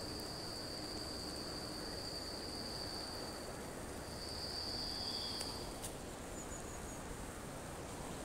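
An insect trilling in the trackside vegetation: one long, thin, high-pitched trill that stops about three seconds in, then a shorter bout a second later. Under it is a faint steady outdoor hiss, with two faint clicks near the middle.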